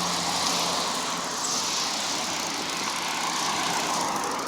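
Motor vehicle going by on the road. Its engine hum fades within the first second, leaving a steady rush of tyre and road noise that swells and eases.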